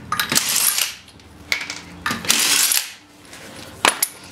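Cordless impact wrench hammering in two short bursts about two seconds apart, spinning lug nuts off a car wheel. A few sharp metallic clicks follow near the end.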